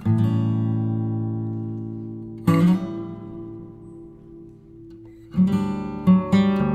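Background acoustic guitar music: a chord rings out at the start and another about two and a half seconds in, each fading away, then quicker picked notes from a little after five seconds.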